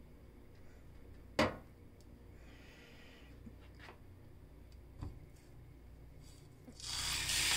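A single sharp knock about a second and a half in, with a few faint clicks. Near the end a raw ribeye steak hits a hot wok and at once starts sizzling loudly as it begins to sear.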